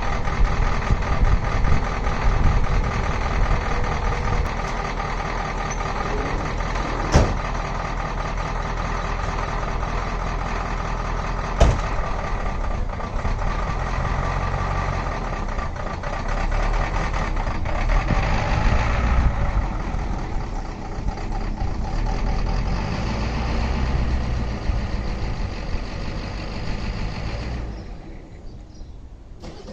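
Ford 6.9L diesel engine running steadily in the truck, with two sharp clicks about seven and twelve seconds in; the running sound falls away quieter near the end.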